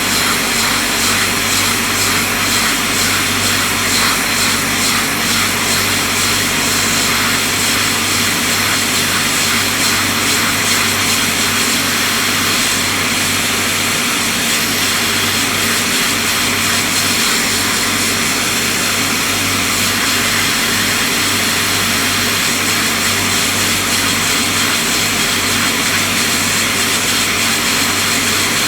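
Hot air rework station blowing a steady hiss of hot air with a low hum under it, heating the solder joints of a USB connector on a circuit board until the solder melts and the connector drops off.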